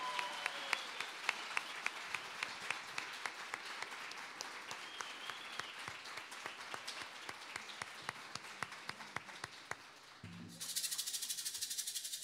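Audience applauding, with a steady beat of clapping, about three or four claps a second, running through it and a few cheers. Near the end a shaker starts up suddenly.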